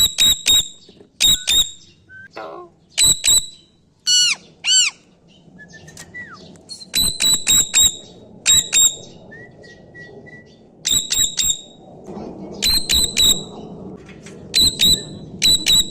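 Pet parrot calling: loud, short, high-pitched calls in quick groups of two to four, repeated every second or two, with a pair of arching whistled notes about four seconds in.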